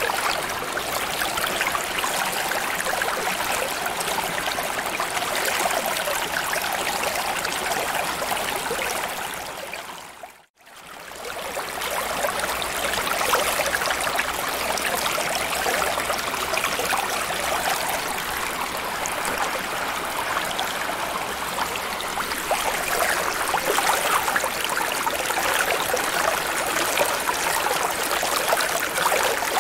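Steady rushing, trickling water ambience. It fades almost to silence about ten seconds in and comes back up a second or so later.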